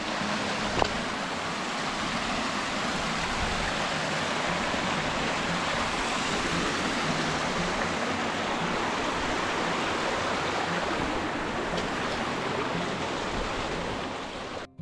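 A steady, even rushing noise that starts and stops abruptly.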